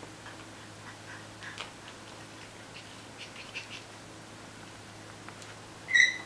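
Four-week-old Wire Fox Terrier puppies playing and scuffling, with soft rustles and faint little squeaks. About six seconds in comes a single short, high-pitched squeak, the loudest sound.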